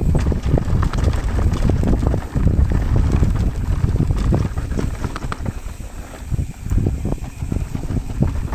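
Mountain bike descending a rough dirt trail at speed: a steady rumble of wind on the camera microphone and tyres on dirt, with frequent clicks and clatter from the bike jolting over bumps.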